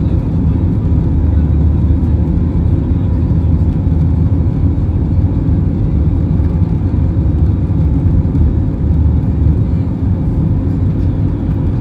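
Steady low rumble of an Airbus A321 cabin as the airliner rolls along the ground, with the jet engines and wheels running beneath it.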